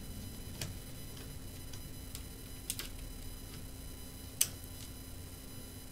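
Scattered light clicks and taps of a small screwdriver, screws and fingers on the plastic underside of an HP EliteBook 840 G1 laptop as the keyboard screws are taken out. A sharper click comes about four and a half seconds in, over a faint steady hum.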